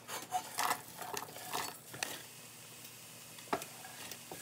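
Chopped onion scraped off a wooden cutting board into an enameled cast-iron Dutch oven holding butter, with a few scrapes and soft clatters over the first two seconds. A single sharp knock follows about three and a half seconds in.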